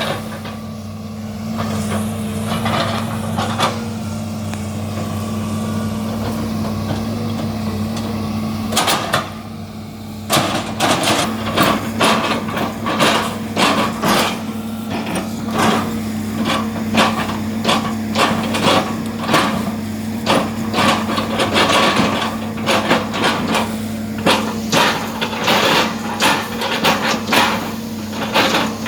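Excavator's diesel engine running steadily under load. From about ten seconds in comes a long run of sharp, repeated knocks, one or two a second, as the bucket chops a felled oil palm trunk into pieces.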